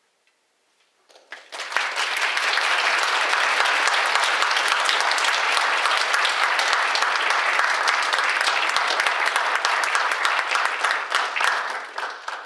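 Audience applauding, starting about a second in after a brief silence and dying away near the end.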